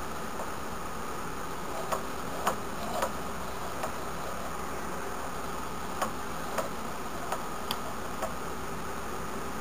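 Irregular light clicks and taps, about ten of them, as two pinned cutout gear discs are turned by hand and their teeth catch and slip past each other, over a steady background hiss.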